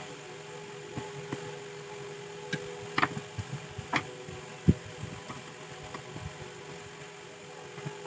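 Steady fan-like hum with scattered sharp clicks and knocks, the loudest a single knock near the middle.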